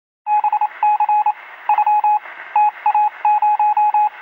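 Morse code: a single steady beep tone keyed in quick groups of short and long beeps, over a radio-like hiss.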